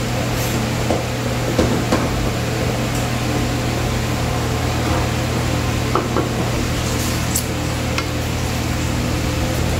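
Wooden spatula stirring mushrooms in simmering sauce in a stainless steel pot, with a few scattered light knocks against the pot over a steady low hum.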